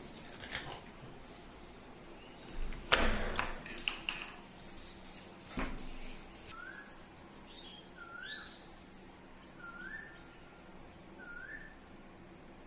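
A bird calls a short rising chirp four times, about one and a half seconds apart, in the second half. Before that, a loud knock and clatter comes about three seconds in, followed by a single sharp tap.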